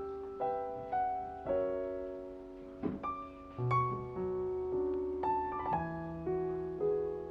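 Background music: soft piano playing a slow melody with held chords.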